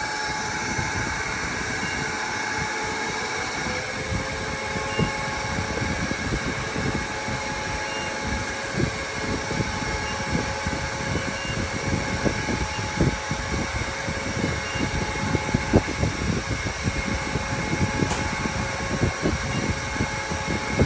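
Honkon S1C+ laser/RF machine running with a steady mechanical hum of its cooling fan and pump, several constant tones over a rough low rumble, with a further steady tone coming in about four seconds in.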